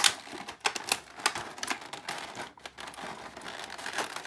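Plastic packaging and toy parts being handled, giving irregular sharp clicks with some crinkling.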